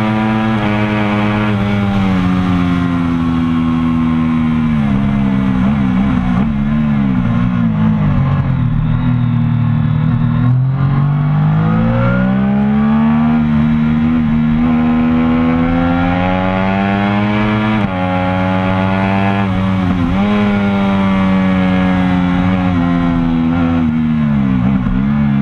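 Triumph Daytona 675R's three-cylinder engine heard from the bike on track at full racing pace. The pitch climbs, then drops abruptly at each gear change, and it dips and rises again as the bike slows for corners and accelerates out.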